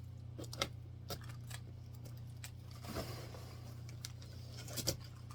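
A key on a key ring slitting and scraping packing tape on a cardboard box: scattered light clicks and rustling scrapes, with the other keys jangling, a little louder about three seconds in and again near the end.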